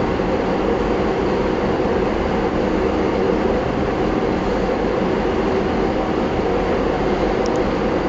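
Steady rushing background noise with a faint low hum, unchanging throughout, as from a running room fan or air-conditioning unit.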